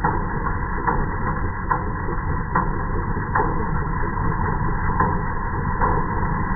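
Engine of a wheat-harvesting machine running steadily, with a regular knock a little more than once a second.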